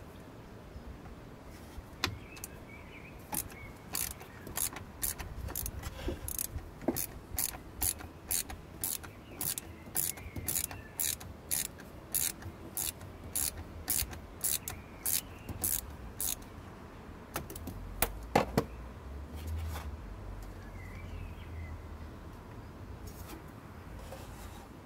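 Socket ratchet clicking in a steady rhythm, about two clicks a second, as it undoes a screw holding the radiator fan shroud. The clicking stops about two-thirds of the way through, followed by two or three louder clicks.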